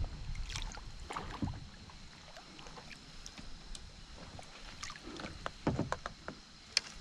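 Kayak paddle strokes: the blades dip and splash in calm creek water, with drips. There are clusters of splashes about a second in and again around five to six seconds in, and a sharp click near the end.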